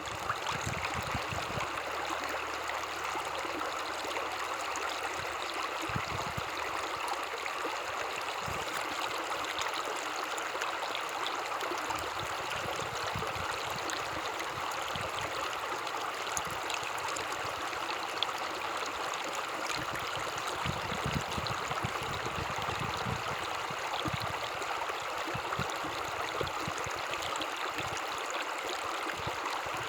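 A stream of running water making a steady, even rushing and babbling sound, with occasional low rumbles underneath.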